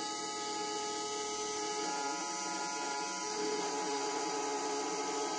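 Roland MDX-15 desktop engraving/milling machine running: the spindle motor turns the engraving bit while the Z axis drives the head slowly down. A steady mechanical whine and whir, its tone shifting slightly about three seconds in.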